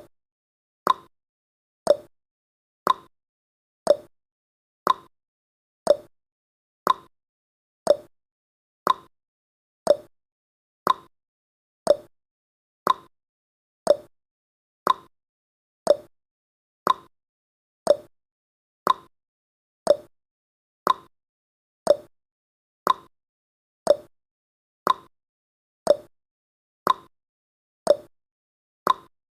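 Countdown timer's ticking sound effect: a sharp clock-like tick once a second, each dying away quickly.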